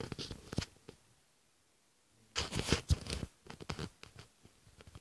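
Rustling and clicking handling noise on a phone's microphone as it is moved: scattered clicks, a short scraping rustle in the middle, then more clicks.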